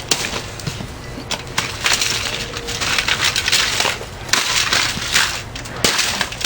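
Lasko box fan being smashed apart: repeated sharp knocks with crunching and cracking of its plastic housing.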